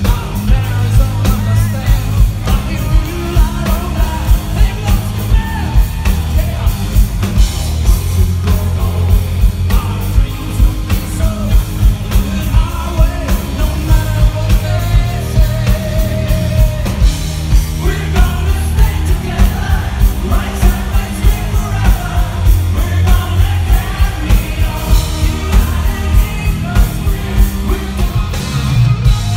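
Live rock band playing loudly: electric guitar over drums and bass, with a steady beat.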